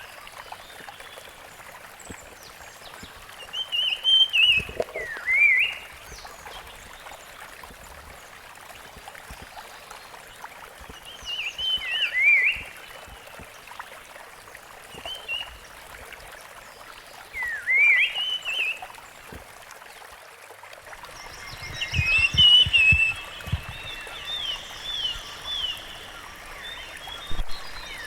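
Rusty-fronted barwing giving short whistled phrases that sweep up and down, repeated every few seconds, with several birds calling together in a busier burst about three-quarters of the way through, over a steady background hiss.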